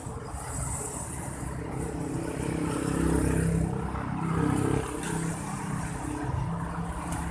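A motor vehicle's engine running close by, growing louder around three seconds in and dropping off suddenly near five seconds, then running on more quietly.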